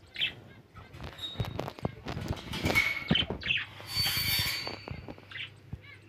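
Alexandrine parakeets clambering on a wire cage: scattered clicks and rattles of claws and beak on the wire, with short chirps and squawks.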